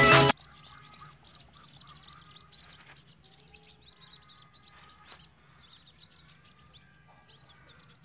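Birds chirping: many short, high-pitched chirps in quick succession, thinning out after about five seconds.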